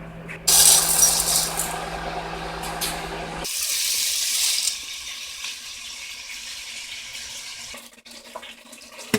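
Water running from a kitchen tap into a container, with a steady low hum under the flow that stops about three and a half seconds in. A lighter splash of water follows and fades away.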